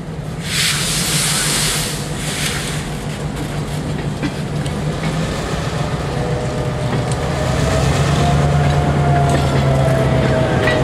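Diesel locomotive moving slowly past while shoving a freight car, its engine drone steady and growing louder toward the end as the locomotive draws level. A loud hiss of released brake air comes about half a second in, followed by a shorter one near two and a half seconds. A faint whine and light wheel clicks on the rail are also heard.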